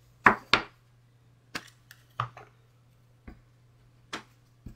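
Clear acrylic stamp block and stamp clicking and knocking on the work surface as they are pressed down, lifted and set aside: two sharp clicks close together at the start, then scattered lighter taps.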